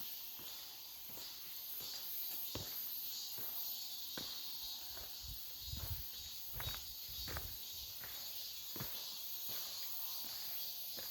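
Footsteps of a hiker walking at a steady pace on a forest trail, a step about every 0.7 seconds, with a few heavier thuds midway. A steady high chirring of insects runs underneath.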